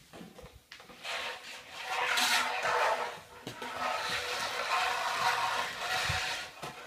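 Vacuum cleaner wand and floor nozzle pushed and dragged across ceramic floor tiles: an uneven rough scraping that starts about a second in, breaks briefly halfway and stops just before the end.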